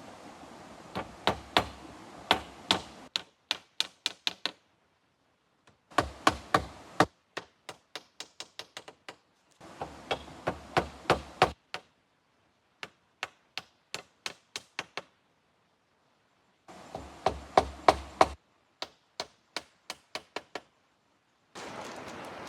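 Repeated sharp knocks of a tool striking wood, in rapid runs of about three to four blows a second, broken into several bursts with pauses between.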